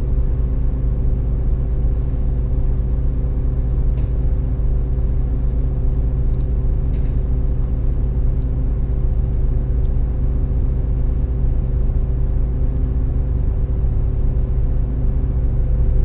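Solaris Urbino 15 city bus idling, heard from the driver's cab: a steady low rumble with a constant hum and no change in engine speed, the bus standing still.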